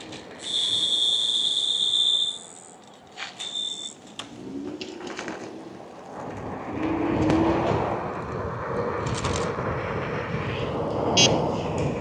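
MaxFun 10 Pro electric scooter's electronic horn sounding a steady high-pitched beep for about two seconds, with a brief second blip a second later. After that, wind and road noise build as the scooter speeds up.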